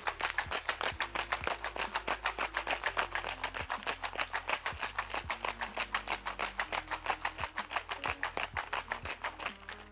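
Ice rattling hard inside a metal cocktail shaker being shaken vigorously, in a fast, even rhythm of several strokes a second that stops just before the end. Faint background music plays underneath.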